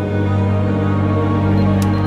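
Background music: long held tones over a steady low drone, with a few brief high ticks near the end.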